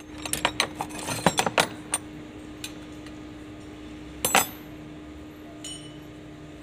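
Metal tools and parts clinking and rattling, with a quick run of about ten sharp clinks over the first two seconds and another short cluster about four seconds in.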